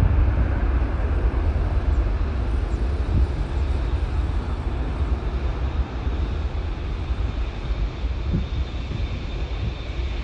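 Airbus A330-200's Rolls-Royce Trent 700 jet engines heard from a distance as a steady low rumble, slowly fading as the airliner moves away along the runway.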